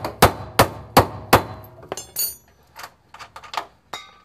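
Hammer blows driving a rust-seized bolt out of the bush in a Suzuki Cappuccino's rear lower suspension arm: about five hard strikes, roughly three a second, that stop about a second and a half in. A few lighter knocks and clinks follow.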